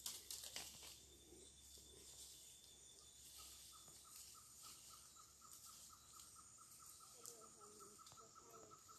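Near silence: faint outdoor ambience by a creek. About three seconds in, a faint chirp at one steady pitch starts repeating, about five pulses a second.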